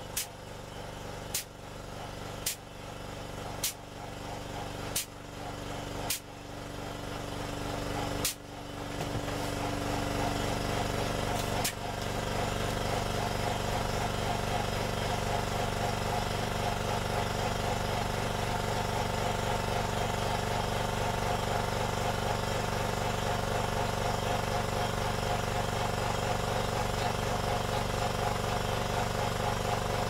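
Hydraulic press running with a steady mechanical hum that builds over the first ten seconds and then holds level while it crushes a toy road roller. Sharp cracks come about once a second through the first dozen seconds.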